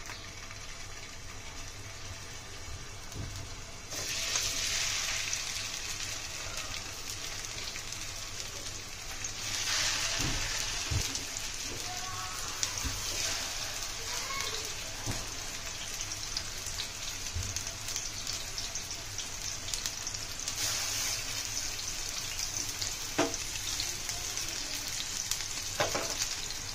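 Chicken seekh kebabs shallow-frying in hot oil in a non-stick pan, sizzling steadily. The sizzle grows louder about four seconds in and again near ten seconds as more kebabs go into the oil.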